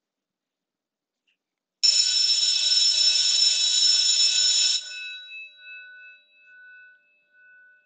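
School bell ringing loudly for about three seconds, starting about two seconds in, then cut off, leaving a tone that fades away in slow pulses.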